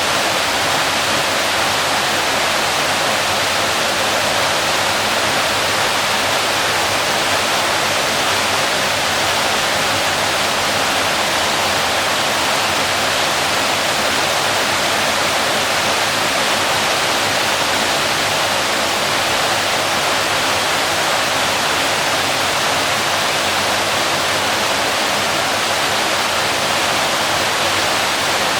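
Waterfall rushing and splashing, a steady, even roar of falling water.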